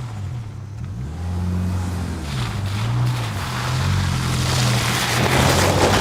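2024 Toyota Tacoma TRD Pro's 2.4-liter engine running under load while driving, its note rising and falling, with a rushing hiss of tyre or spray noise that swells near the end.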